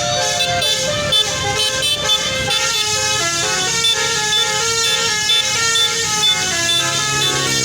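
Bus musical horn (basuri/telolet) playing a melody, its notes changing pitch in steps, over a low rumble.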